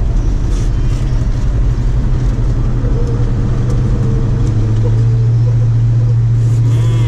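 1966 Dodge Dart GT driving at a steady speed, heard from inside the cabin: a steady low engine drone over tyre and road noise. About two-thirds of the way through, the drone turns steadier and slightly louder.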